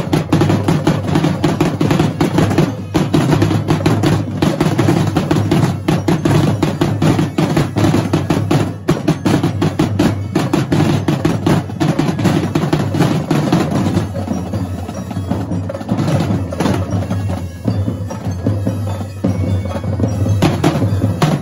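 Two drum corps drumlines of marching snare, tenor and bass drums playing at once in a drum battle, a dense, fast run of strokes and rolls. About fourteen seconds in the playing turns lighter and sparser, then fills back in near the end.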